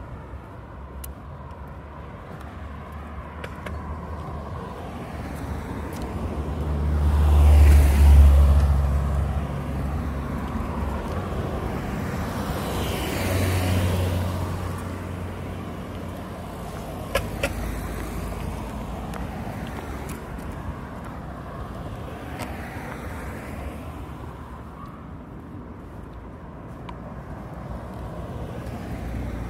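Cars passing on the road alongside, each one's engine hum and tyre noise swelling and fading away. The loudest, closest pass comes about eight seconds in, another a few seconds later, and a fainter one past the twenty-second mark. Two short sharp clicks sound about halfway through.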